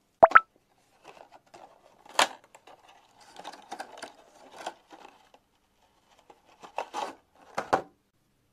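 A sharp double click at the start, then plastic packaging crinkling and rattling with scattered knocks as plastic hair rollers are handled and taken from a clear plastic tube. A few louder plastic clicks come near the end.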